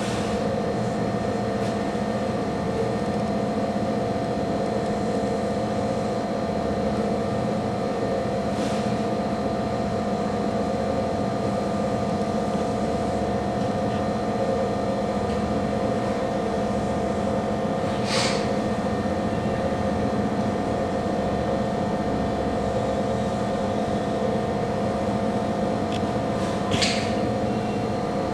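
A steady machine hum with a held tone runs throughout. A marker drawing on a whiteboard gives a few short squeaky strokes, at about a third of the way in, about two thirds in and near the end.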